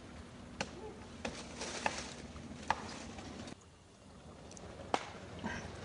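A handful of sharp, isolated clicks or knocks, irregularly spaced, over a low background hum that drops away abruptly about halfway through.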